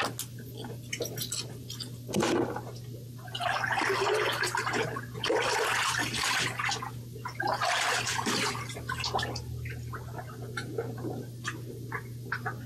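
Water sloshing and gurgling in several loud surges between about two and nine seconds in, with small drip-like ticks, over a steady low hum.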